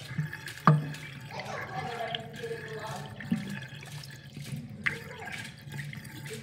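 Water swirling down a stainless steel sink drain in a vortex, with a few sharp knocks, the loudest just under a second in.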